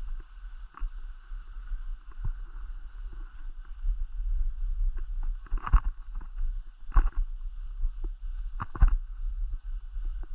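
Skis sliding and scraping over snow, an irregular hiss with a few louder rasps, over a steady low rumble of wind buffeting the microphone.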